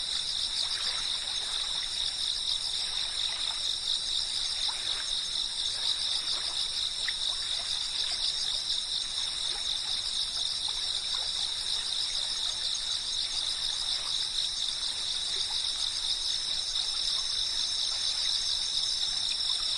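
A chorus of insects chirping in a continuous high, finely pulsing trill, with a second steady higher tone above it. Faint irregular soft ticks sound lower down.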